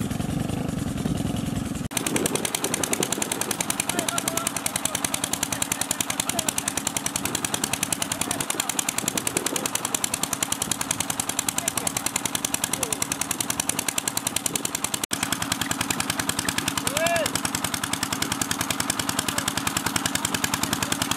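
An engine running steadily, beating in a rapid, even rhythm from about two seconds in.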